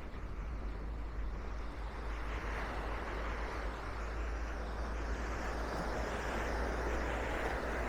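Sea surf washing onto the beach, swelling about two seconds in, with wind rumbling on the microphone.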